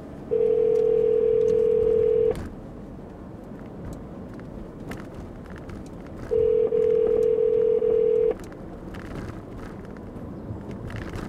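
Telephone ringback tone heard down a phone line: two long, steady tones of about two seconds each, about four seconds apart. This is the ringing signal that the called phone is ringing at the other end.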